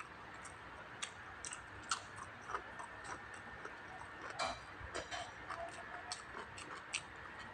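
Close-miked eating: chewing and mouth sounds, with irregular sharp clicks and smacks about once or twice a second, one louder click about halfway through.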